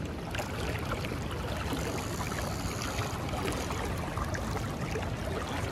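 Fast river current rushing and splashing close by: a steady watery rush with many small, irregular splashes.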